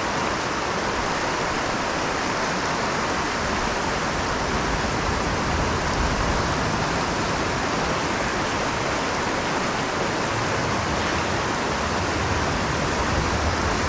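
Small mountain creek's water rushing, a steady, even rush with no breaks.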